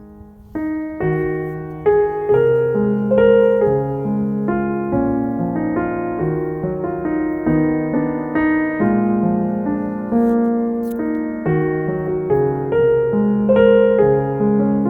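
Background solo piano music: a gentle, steady stream of melody notes over lower chords, picking up again about half a second in after a brief lull.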